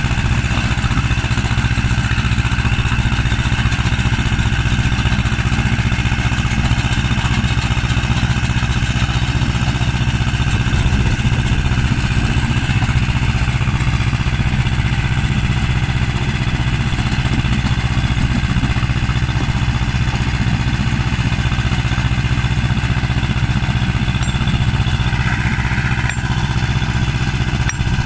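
Tractor engine running steadily, powering a stone-crushing machine working a stony field.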